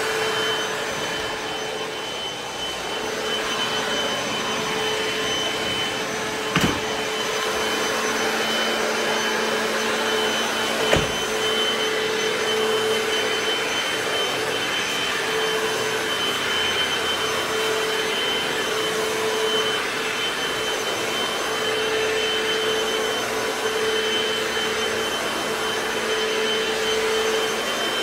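Hoover FloorMate wet hard-floor cleaner running steadily with a steady motor whine as it is pushed over a wood floor. Two sharp knocks come about a quarter and about two-fifths of the way in.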